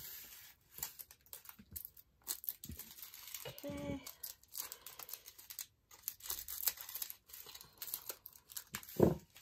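Small plastic baggies of diamond painting drills crinkling and rustling in many quick, sharp crackles as they are handled and opened. A brief louder low sound comes near the end.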